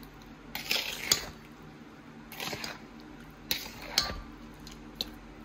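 Metal spoon stirring through syrupy apple slices in a stainless steel mixing bowl: about four separate scraping strokes, with sharp clinks of the spoon against the bowl.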